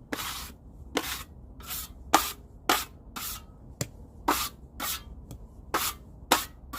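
Drywall taping knife scraping joint compound off the sides and rim of a compound bucket in a quick series of short strokes, about two a second.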